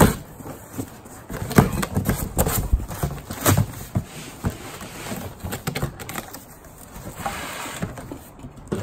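Cardboard box being opened and handled: the flaps scrape and rustle, with irregular sharp knocks from the glass and metal items packed inside.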